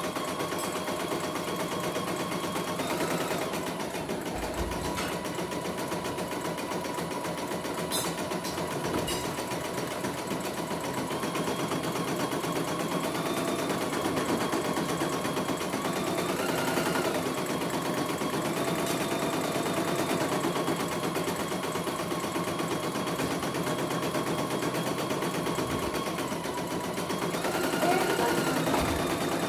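Computerized embroidery machine stitching a test design: a steady, rapid needle rattle, with a faint whine that shifts in pitch every few seconds as the hoop moves.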